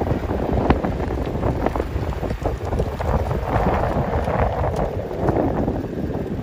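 Wind buffeting the microphone outdoors: a steady low rumble with fluttering, swelling into a louder rush about halfway through.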